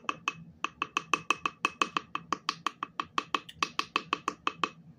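A spoon stirring thick sauce in a glass cup, clinking against the glass in a fast, even rhythm of about six strikes a second, stopping just before the end.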